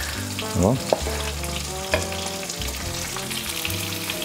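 Diced bacon and cherry tomatoes sizzling steadily in olive oil in a frying pan, with a couple of sharp knife taps on a wooden cutting board about one and two seconds in.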